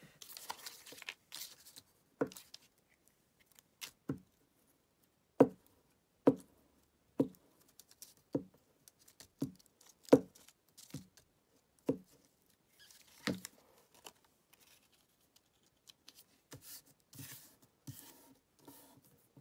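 Glue stick being rubbed over the back of a paper cut-out on a table, giving a string of sharp knocks about once a second, then paper rustling as the cut-out is pressed and smoothed down.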